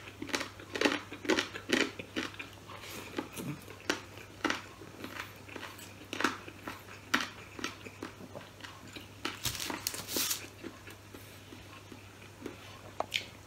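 Close-up mouth sounds of a man eating rice and fried pork by hand: irregular wet chewing smacks and small crunches.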